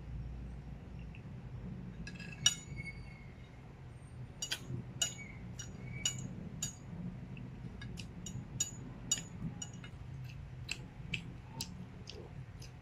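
Metal fork and spoon clinking and scraping on a ceramic plate while gathering up pasta. The sharp clinks start a couple of seconds in and come in quick runs, over a steady low hum.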